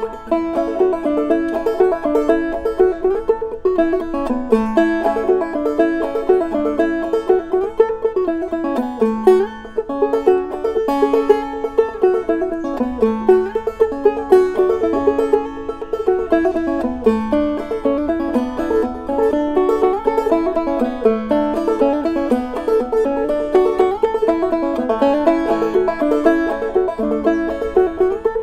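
Five-string banjo played clawhammer style: a quick, driving old-time fiddle tune in G tuning (gDGBD) capoed at the second fret, so it sounds in the key of A, with a dense, even stream of plucked notes and thumbed drone.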